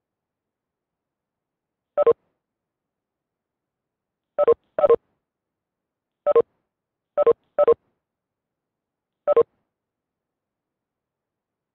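Short two-note electronic chimes from a video-call app, seven in all at irregular spacing, with three pairs coming close together.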